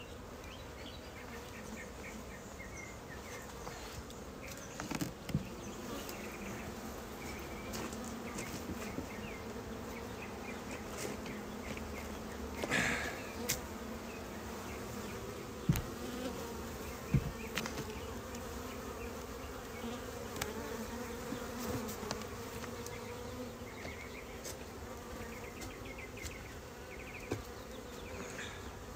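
Honeybees buzzing around an opened hive, a steady even-pitched hum throughout. A few short knocks and a brief scrape sound through it as the wooden hive boxes are handled.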